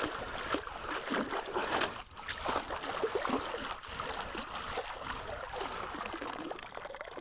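Water splashing and trickling, with small knocks and scrapes, as a metal-detector target is dug out of shallow water with a scoop and shaken in a sieve.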